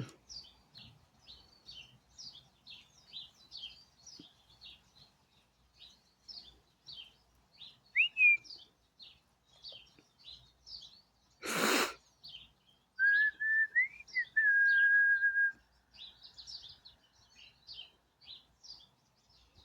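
Small birds chirping, short high chirps repeating two or three times a second, with a person whistling over them: a brief rising whistle, then a longer whistle that rises and holds one note for about a second. A single short loud burst of noise comes just before the long whistle.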